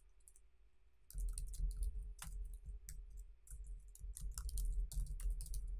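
Typing on a computer keyboard: a run of quick, irregular key clicks that starts about a second in.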